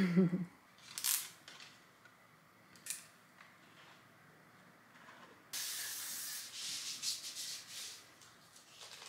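A few brief swishes and rustles, then about three seconds of dense hissing from an aerosol spray can, starting abruptly about five and a half seconds in.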